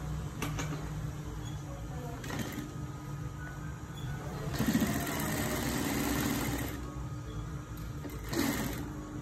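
Juki industrial sewing machine stitching in short runs, with a longer run of about two seconds in the middle and brief runs before and after it, over a steady low hum.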